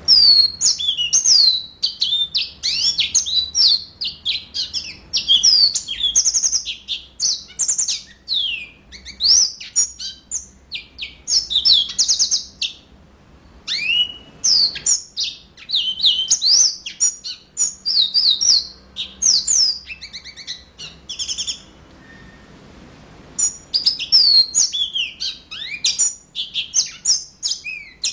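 Yellow-fronted canary (mozambik) in full song: quick, high whistled notes and trills delivered phrase after phrase, with a pause of about two seconds past the middle.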